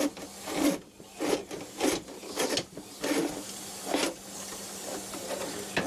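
Rhythmic rubbing strokes, roughly one every two-thirds of a second, over a faint steady hum.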